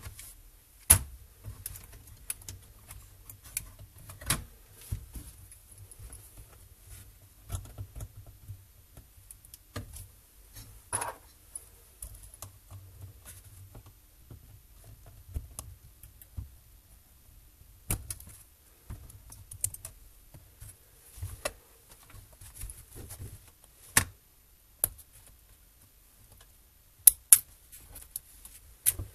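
Scattered sharp clicks and taps of plastic parts and small hand tools on an Acer Aspire V3-771G laptop being taken apart. The clicks come at irregular times, with the loudest about a second in and two close together near the end.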